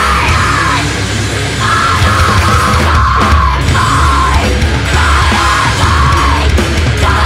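Mathcore played loud and dense: heavily distorted guitars, bass and drums, with a yelled, screamed vocal over them.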